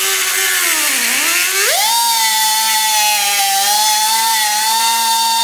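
Die grinder with a cutting blade running at speed and slicing along a straight edge through hardware cloth (wire mesh). Its high whine sags in pitch about a second in as the blade takes the load, then climbs back and holds steady.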